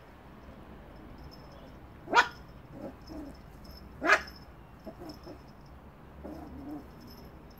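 Yorkshire terrier puppy giving two short, high yaps about two seconds apart, with softer little vocal sounds between and after them.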